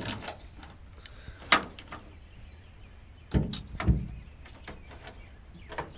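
Scattered knocks and clicks of metal hardware against an aluminum diamond-plate truck toolbox as a nut is worked on by hand onto a J-hook bolt. There is a sharp click about a second and a half in, then two heavier knocks between three and a half and four seconds in.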